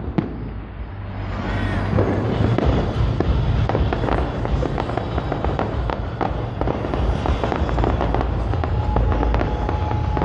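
Fireworks display: many rapid bangs and crackles over a continuous low rumble, dipping briefly at the start and then building back up.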